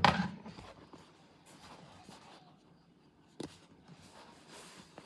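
Handling noises: a sharp knock right at the start, then soft rustling and scraping, with another click about three and a half seconds in.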